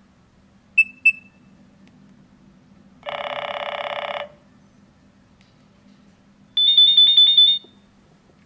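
Nokia 6220 mobile phone playing short alert tones through its small loudspeaker: two quick high beeps about a second in, a buzzy tone lasting about a second, then a fast warbling high trill near the end.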